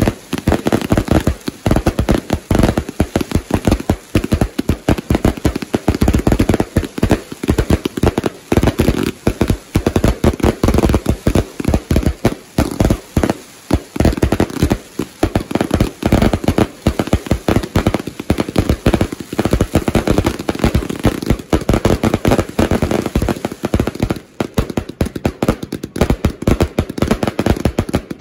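Consumer firework cakes firing in a continuous barrage: a rapid, unbroken string of sharp bangs, several a second.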